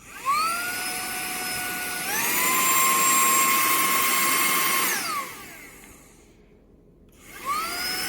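Cordless handheld vacuum motor whining. It spins up with a rising whine, steps up to its higher speed setting about two seconds in, and winds down with a falling pitch about five seconds in. It starts up again near the end.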